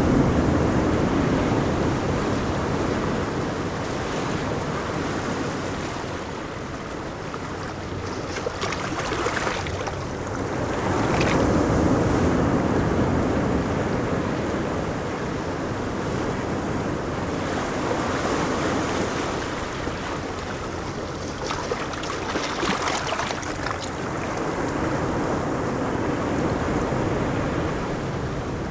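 Ocean waves breaking and washing up on a beach, rising and falling in slow surges, with a low rumble of wind on the microphone underneath.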